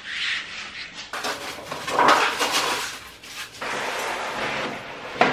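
Thin 1 mm underlay sheet for a PVC floor rustling and crinkling as it is lifted and laid out by hand, loudest in the middle.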